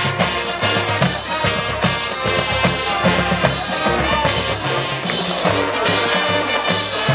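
High school marching band playing live, brass horns carrying the tune over a steady beat of drums and percussion.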